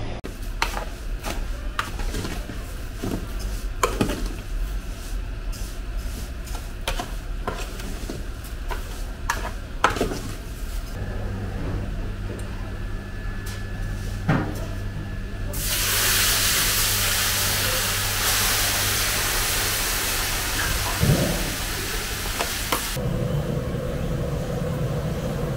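Brittle dried dough sheets snapping and crackling as they are broken up by hand, a string of sharp separate cracks over a low hum. About sixteen seconds in, a loud steady cooking hiss starts and cuts off suddenly about seven seconds later, leaving a lower steady hum.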